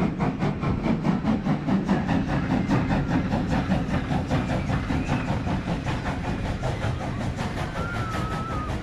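Train running past with a rapid, even beat of about five strokes a second over a steady rumble, with a brief high wavering tone near the end.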